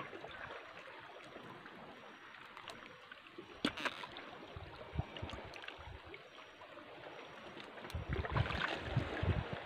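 Shallow seawater trickling and lapping in a reef tidal pool, with small splashes as a fishing net is handled in the water. A sharp knock about four seconds in, and heavy low bumps near the end.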